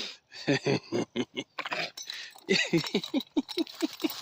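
Trapped raccoon calling: a rapid series of short grunting calls, each falling in pitch, about five a second and thickest in the second half, with noisy bursts between them.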